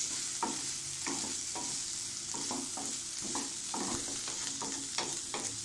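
Wooden spatula stirring and scraping a frying onion and cabbage mixture in a non-stick pan, about three short scrapes a second over a steady sizzle.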